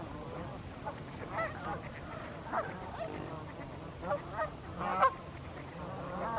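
A flock of wintering waterfowl honking: several short calls overlap and come every second or so, the loudest about five seconds in, over a steady low rumble.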